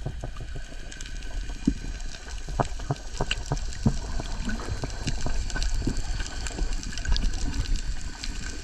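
Underwater sound picked up by a GoPro in its waterproof housing: a muffled low wash of water with many scattered short clicks and pops, and a faint steady high hum.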